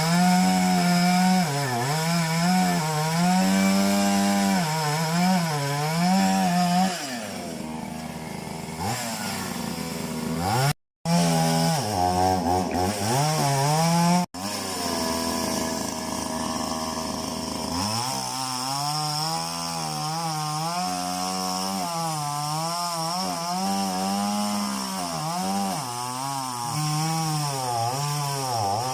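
Chainsaw running and cutting into a tree trunk, its pitch wavering up and down as the chain bites. The pitch falls off for a few seconds about a quarter of the way through, and the sound breaks off briefly twice near the middle.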